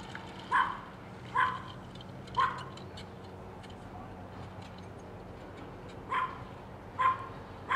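A dog barking in single, short barks: three about a second apart, a pause of several seconds, then three more.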